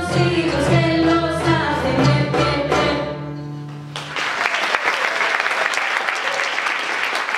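A Middle Eastern ensemble with voice, clarinet, accordion and violin plays the last bars of a Sephardic folk song and ends on a held note. About four seconds in, the audience breaks into steady applause.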